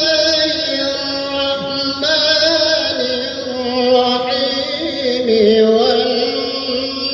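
A male qari reciting the Quran in the melodic, drawn-out tilawah style into a microphone. He holds long, wavering, ornamented notes in phrases of about two seconds each.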